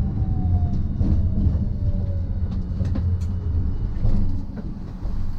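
Hiroshima Electric Railway type 1000 tram running on street track, heard from inside the car: a steady low rumble with a faint motor whine that falls slowly in pitch.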